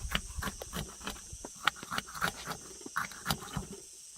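Crumbly semolina harcha being broken into pieces by hand: irregular crunching and crackling clicks, a dozen or more short cracks.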